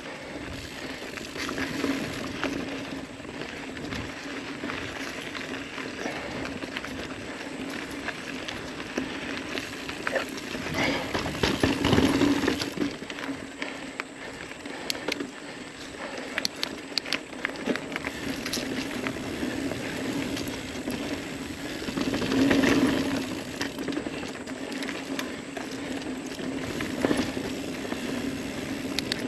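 Ibis Ripley mountain bike rolling along a dirt singletrack: steady tyre noise on the trail with frequent clicks and rattles from the bike, louder over rough patches about twelve and twenty-two seconds in.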